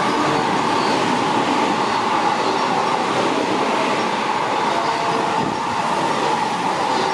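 Train passing through a station without stopping, a steady loud rush of wheel and rail noise.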